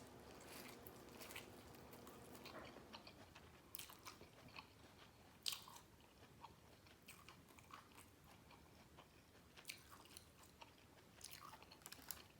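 Faint biting and chewing on seasoned corn on the cob, with scattered small crunchy clicks.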